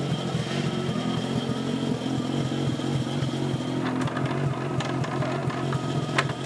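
Pro Formula Mazda's two-rotor rotary engine running at a steady pitch, with a few sharp clicks about four to six seconds in.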